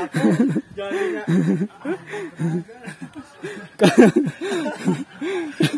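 Several people laughing and chuckling in short rising-and-falling runs, voices overlapping, with a louder spell of laughter about four seconds in.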